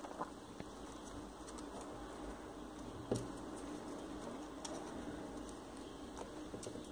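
Folded paper triangle units of a 3D origami model rustling and clicking softly as they are pushed into place by hand, with one sharper tap about three seconds in.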